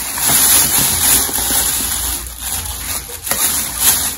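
Plastic bags and packaging rustling steadily as items are dug out and handled, with a few sharper crinkles.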